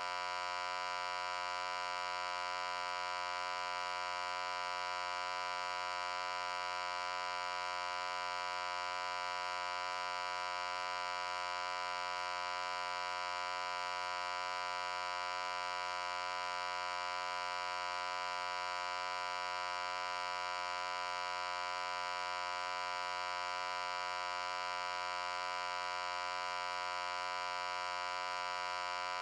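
A steady electrical hum: one unchanging pitch with many overtones, giving it a harsh, buzzy edge.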